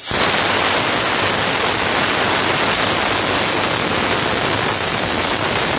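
Pressure cooker whistling: a loud, steady hiss of steam venting under the weight, starting abruptly. It is one of the whistles that count the cooking of the kidney beans under pressure.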